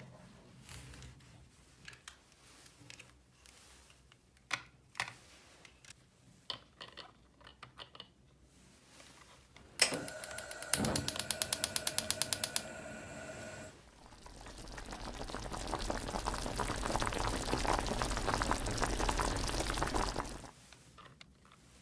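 Light clicks and taps of small objects being handled. About ten seconds in comes a rapid run of ratchet-like clicking, about six a second, for some three seconds. Then a rustling noise swells for about six seconds and cuts off suddenly.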